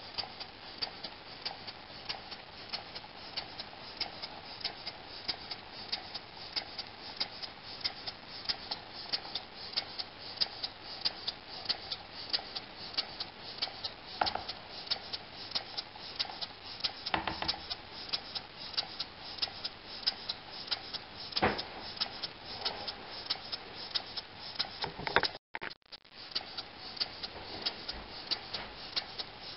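Model over-crank vertical pumping steam engine running on compressed air at about 5 PSI, its valve gear and crank giving a quick, even ticking with each turn of the flywheel. A few louder knocks stand out, and the sound cuts out for a moment about three-quarters of the way through.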